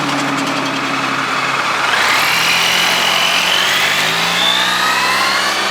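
Motorcycle engine running steadily, then pulling away about two seconds in, its pitch climbing, with a shift and a fresh climb around four seconds in.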